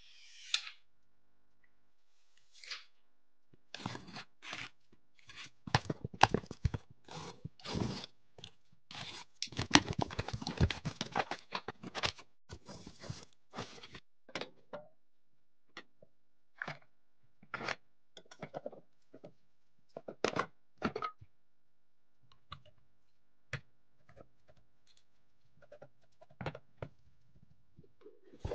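Computer parts and their packaging being handled: a string of short clicks, knocks and scraping rustles, thickest about a third of the way in and thinning out towards the end.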